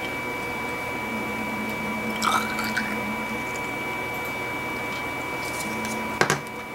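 Saline squirted from a syringe into test tubes, with a sharp click near the end, over a steady high-pitched whine in the background.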